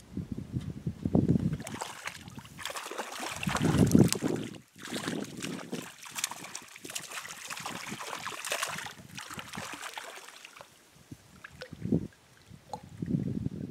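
Irregular splashing and crackling at the water surface, typical of a hooked trout skimming and thrashing on top of the stream. Low gusts of wind buffet the microphone about a second in, around four seconds in and near the end.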